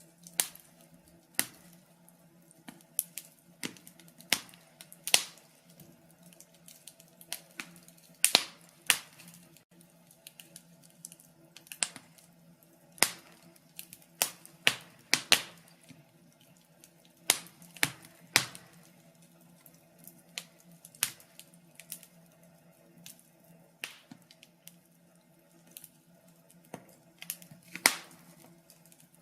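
Wood fire crackling in a fireplace: irregular sharp pops and snaps, some in quick clusters, over a faint steady low hum.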